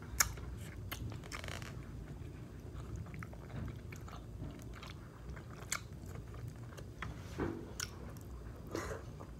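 A person eating close to the microphone: chewing, with a few sharp clicks of a fork against the plate.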